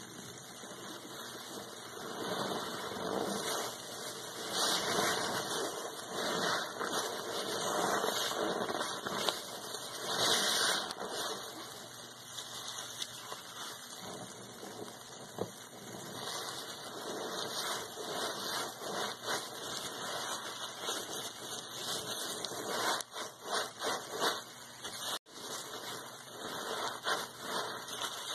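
A sponge soaked in foamy pine cleaner being squeezed over and over in gloved hands: wet squelching and crackling suds, coming in uneven squeezes.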